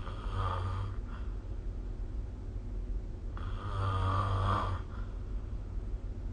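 A sleeping person snoring, recorded on a phone: two snores, a short one at the start and a longer, louder one about three and a half seconds in, over a steady low hum.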